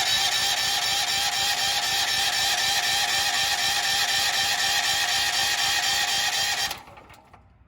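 Firman petrol generator's electric starter cranking the engine in one steady whir for about seven seconds, then cutting off suddenly near the end without the engine catching: a no-start.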